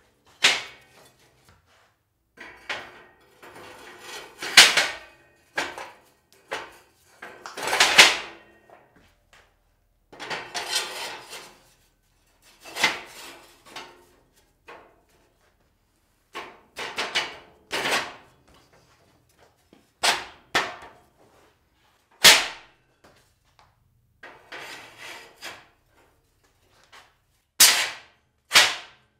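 Laser-cut steel ribs of a modular welding table being slid together and set into the slots of its steel top: irregular metallic clanks and knocks with short scrapes of plate sliding on plate.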